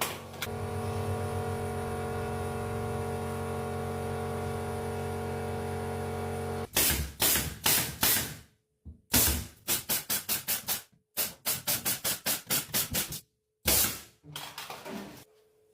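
A steady machine hum runs for about six seconds and cuts off suddenly. After it come runs of sharp, rapid strikes, about four or five a second, with abrupt breaks between runs.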